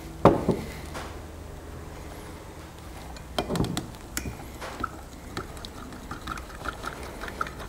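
A stir stick knocking and scraping against the inside of a glass measuring cup while thick liquid plastisol is mixed. There is a sharp knock shortly after the start, a brief scrape around the middle, then a run of light ticks.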